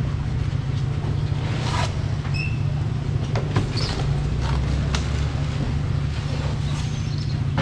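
Outdoor street noise at a market stall: a steady low rumble with scattered knocks and clatter on top.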